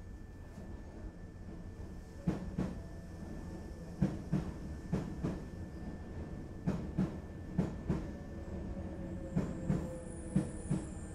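Hankyu 3300 series train running, its wheels clacking over rail joints in pairs, about one pair a second, over a steady low rumble from the car. A faint whine falls slowly in pitch near the end.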